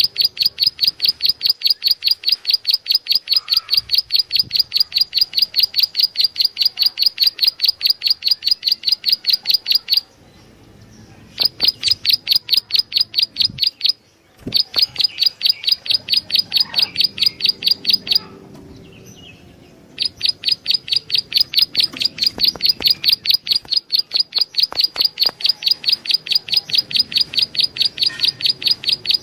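Prenjak alang-alang (a prinia) calling: a fast, even string of sharp high chips, about four to five a second, that stops briefly three times and starts again. It is a recorded call used to lure the same species.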